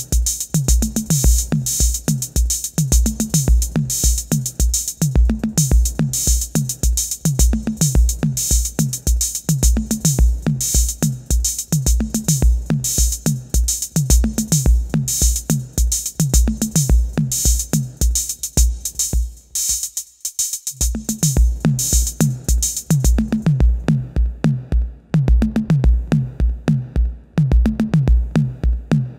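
Roland TR-606 Drumatix analog drum machine playing a programmed pattern: a steady bass drum with quick hi-hat ticks and a bright high metallic wash over them. The machine is working again after its power supply was repaired. About two-thirds through, the bass drum drops out for a second and then returns; shortly after, the high wash stops and only the ticking hats remain over the kick.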